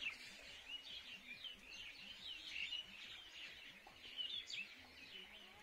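Small birds chirping: many short, quick high calls overlapping one another, fairly faint.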